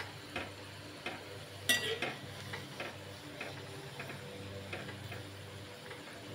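Onion pakoras deep-frying in hot oil in a metal kadhai, sizzling steadily as they turn crisp and brown, while a steel ladle turns them and clinks against the pan about once a second, loudest about a second and a half in.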